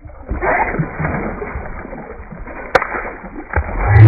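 Water splashing and sloshing, with a sharp click about three seconds in and a softer knock shortly after.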